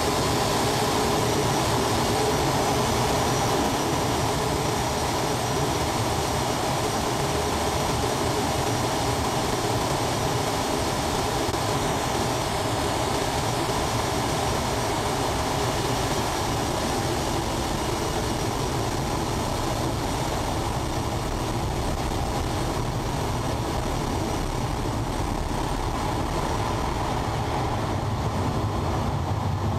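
Steady roar of rushing air and jet engine noise inside a Boeing 737's open main wheel well during the takeoff climb.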